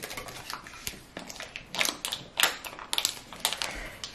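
Plastic hotpot sauce packet crinkling and crackling in the hands as it is pulled open and squeezed out, an irregular run of sharp crackles.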